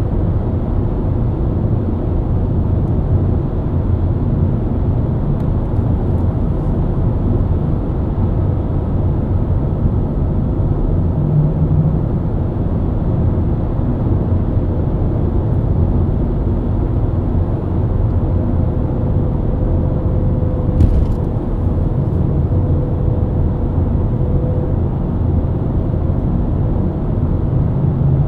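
BMW E90 323i's inline-six engine running steadily at a constant cruising speed, mixed with steady tyre and road rumble; no revving.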